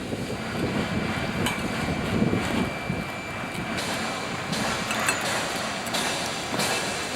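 GY-200-1A engineering drilling rig running with a steady mechanical noise, and a few sharp metal knocks scattered through it.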